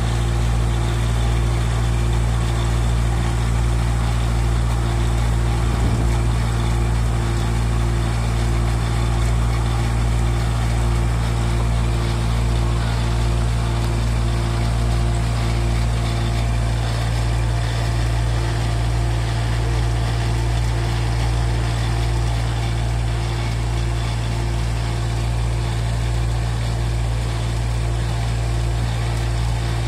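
Mini tractor's diesel engine running steadily under load, driving a PTO post hole digger auger as it bores into soil, with a faint regular pulse about twice a second.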